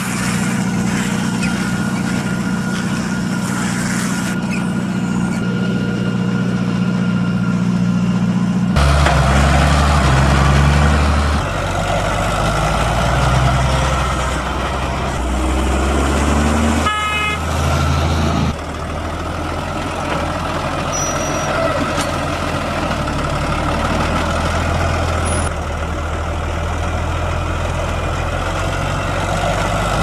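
Deutz-Fahr farm tractor diesel engines running steadily. About nine seconds in, the sound changes to a lower, louder engine as a tractor carrying wrapped round bales drives by, and a short high tone sounds a little past halfway.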